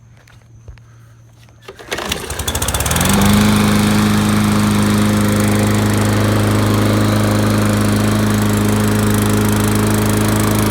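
Briggs & Stratton lawn mower engine pull-started on its newly replaced recoil cord: it catches about two seconds in, climbs to speed and settles into a loud, steady run.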